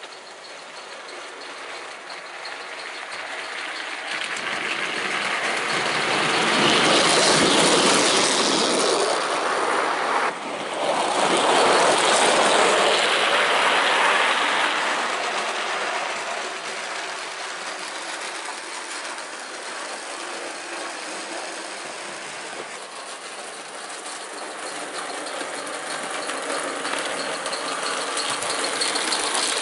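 Gauge 1 live-steam model locomotive and its wagons running on garden track, the wheels clattering over the rails. It grows loud as the train passes close, about seven and twelve seconds in, and again near the end.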